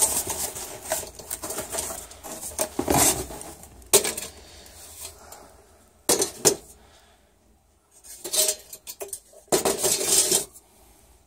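New 6-inch sheet-metal automatic vent damper (Field Controls GVD-6PL) being lifted out of its cardboard box and handled: irregular metallic clanks and knocks with cardboard rustling.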